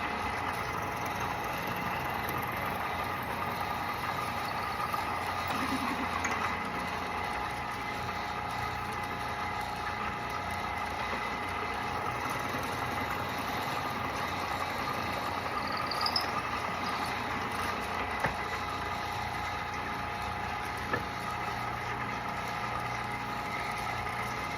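Antique Walker Turner drill press running on its original electric motor: a steady hum with a few held tones, and a couple of brief clicks past the middle.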